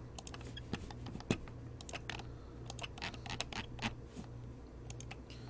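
Typing on a computer keyboard: irregular key clicks in small clusters, over a steady low hum.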